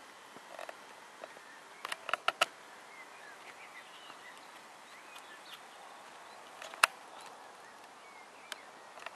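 Quiet rural field ambience with faint, distant songbirds chirping. A few short, sharp calls or knocks come about two seconds in, and a single sharp click near seven seconds is the loudest sound.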